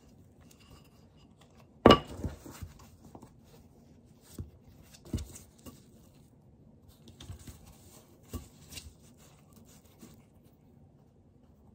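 A wooden rolling pin set down with one loud knock on a wooden board, followed by soft thumps of dough and rustling of baking paper as the dough is lifted and rolled up by hand.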